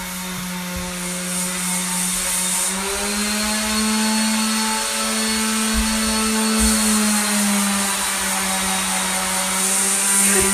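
Corded handheld electric power tool running steadily as it is worked over a wooden floor. Its motor hum rises a little in pitch about three seconds in and drops back about eight seconds in.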